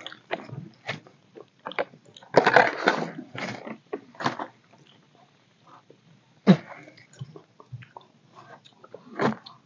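Water sloshing and splashing in a plastic jerrycan as it is drunk from, then poured into a bowl near the end, among scattered short knocks and clicks of handling.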